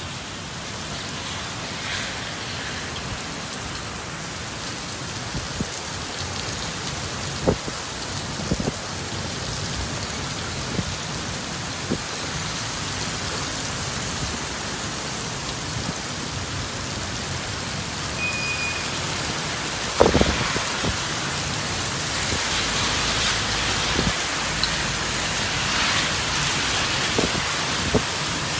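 Heavy rain pouring steadily onto pavement in a thunderstorm, slowly growing heavier, with a few sharp knocks, the loudest about twenty seconds in.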